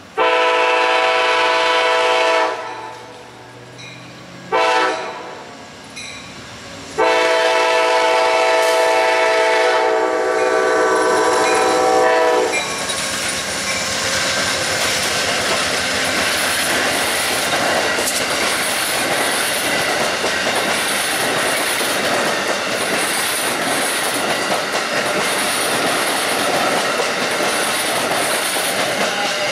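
Locomotive horn sounding a long blast, a short toot and another long blast, typical of the end of a grade-crossing signal. The train then rolls past with steady clatter of wheels on the rails.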